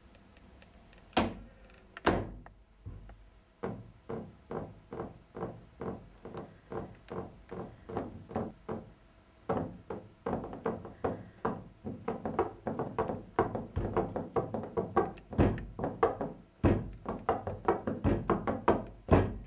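Rhythmic drumming: two loud knocks about a second apart, then a steady beat of lighter strokes, about two a second, that grows busier and louder about halfway through.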